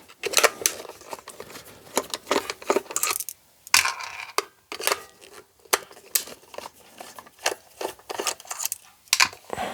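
Screws clinking as they are dropped into a small bowl, among irregular clicks and rattles from taking apart the plastic case of a blood pressure monitor.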